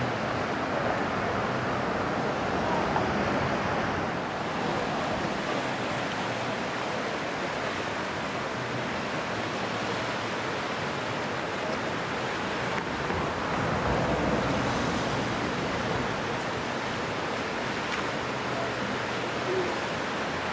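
River water rushing steadily past rocks, an even, unbroken wash of noise.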